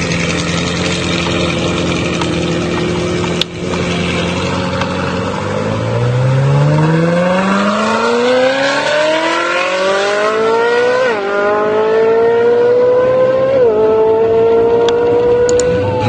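Ferrari V8 sports car engine, first holding a steady note, then accelerating hard from a standing start: the pitch climbs, drops back at each upshift and climbs again, three shifts in all.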